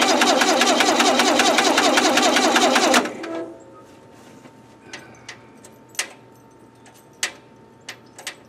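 Lincoln SA-200 welder's gas engine turning over on its starter in an even rhythm without firing, then stopping abruptly about three seconds in. It is a cold start after six months of sitting, and the owner suspects no spark. A few sharp clicks follow.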